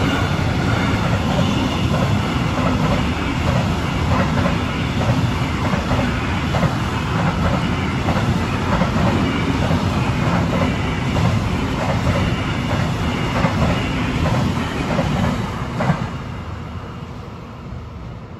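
Freight train of intermodal container wagons passing close by at speed: a loud rumble with the clatter of wheels over the rails. The last wagon goes by about sixteen seconds in, and the rumble then fades away into the distance.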